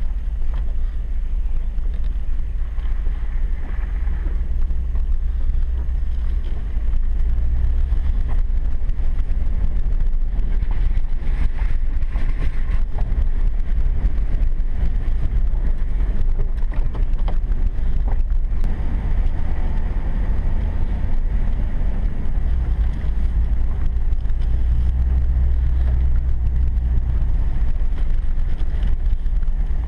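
Ford 4x4 pickup driving slowly over a rough dirt track, heard inside the cab: a steady low engine and tyre rumble with scattered knocks and rattles from bumps.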